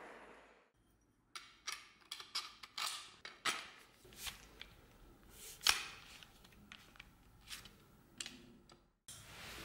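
A gas torch's hiss fades out at the start, then irregular clicks and knocks as a moose-antler knife handle and hand tools are handled and set down on a workbench, one knock louder than the rest about halfway through.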